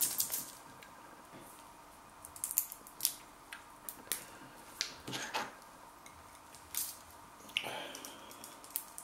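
Scattered small clicks and ticks of a plastic cap and its seal being twisted and picked at on a sauce bottle, while trying to get it open.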